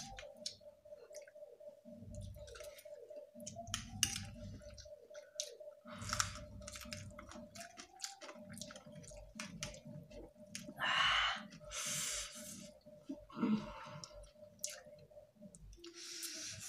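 Two people eating instant noodles with forks: close-up chewing, with scattered sharp clicks of forks against the plates and a few short breathy bursts, over a faint steady hum.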